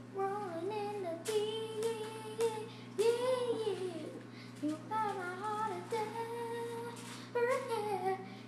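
High, childlike voice singing a wordless melody in held, gliding notes, over a steady low hum.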